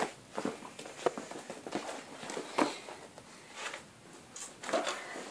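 Footsteps and handling noise: light irregular knocks and rustles as a folding fabric storage bin is set onto a bookshelf.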